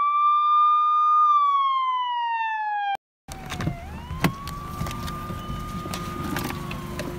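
A siren-like wail laid over the picture as an effect: one clean tone rising, holding, then gliding down, cut off abruptly about three seconds in. Then car-door handle clicks and movement as someone gets out of a car, with a fainter rise-and-fall wail under it.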